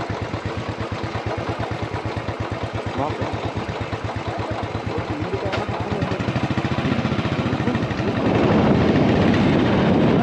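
Motorcycle engine idling with a rapid, even beat. About eight seconds in, the engine noise swells and grows louder.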